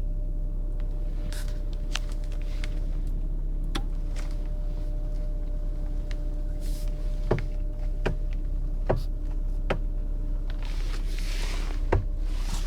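Volkswagen Polo sedan engine idling steadily, with a row of sharp knocks from the steering column about every 0.8 s, the loudest near the end. The knocks are the unexplained steering knock that the owner places around the steering tie rod.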